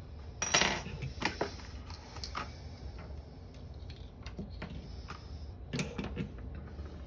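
Small hard metal objects clinking and clattering as they are handled and set down: a sharp clatter about half a second in, a few single clicks after it, and another short cluster of clicks near the end.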